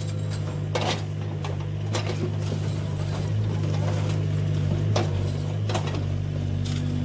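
Remote-control toy excavator's electric motors and plastic gearboxes whirring steadily as the boom and bucket move, with a few sharp clicks and knocks. A second, higher motor tone joins near the end as the bucket tips its load.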